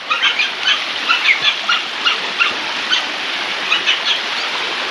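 Small birds chirping in short, high calls, several a second, over the steady rush of running water.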